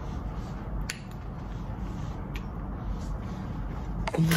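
Handling noise on a phone microphone: a steady low rumble with a few faint clicks, then a cluster of knocks and rubbing near the end as the phone is reached for.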